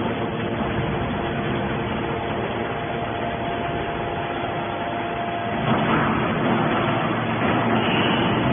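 Heavy scrap-processing machinery running: a steady drone with a few held tones, which gets louder and shifts to lower tones about two-thirds of the way through, as if a load or stroke changes.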